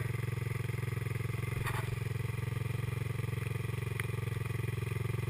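Sport ATV engine idling steadily with an even, rapid throb.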